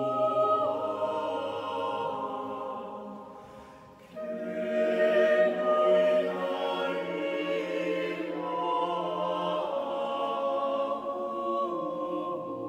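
Small mixed choir of about eight voices singing unaccompanied in held chords, in a church. One phrase fades away about three to four seconds in, and the next phrase comes in louder just after.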